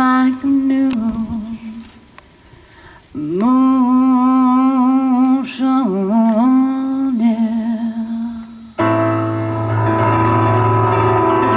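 A singer holds long sung notes with vibrato, with a brief phrase at the start and a longer one in the middle. At about nine seconds in, a Yamaha keyboard enters with full sustained piano chords and a deep bass note under them.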